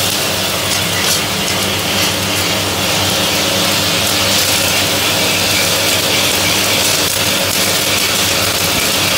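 Vacuum equipment running steadily while sucking out a grease trap: an even hiss over a low, steady hum.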